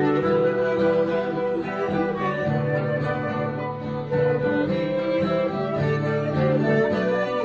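Instrumental music: a guitar accompaniment with bowed strings in sustained notes.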